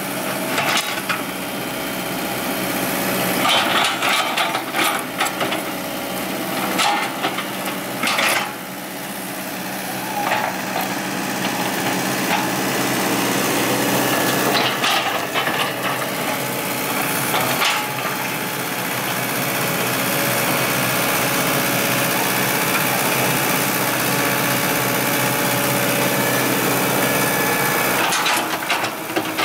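Komatsu hydraulic excavator's engine running steadily under working load, with scraping and knocking sounds breaking in several times as it grades soil.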